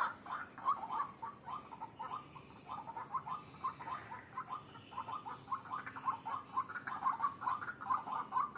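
White-breasted waterhen calling: a rapid series of short, repeated call notes, several a second, in bouts that ease off for a couple of seconds in the middle and then build again.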